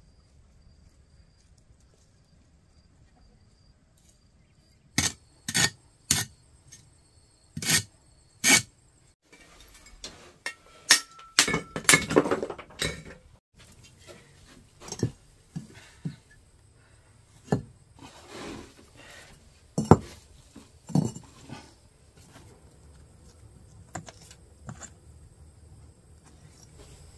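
Hollow fired-clay bricks clinking and knocking against each other and the wall as they are handled and set into mortar, a string of sharp, irregular clinks that begins about five seconds in.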